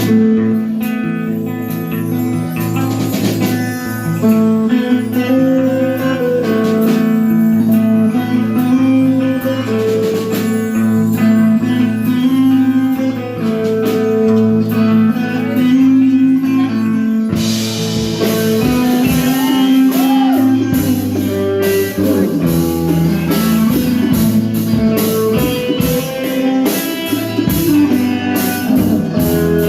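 Guitar-led music with a bass line under held notes; cymbals come in a little over halfway through.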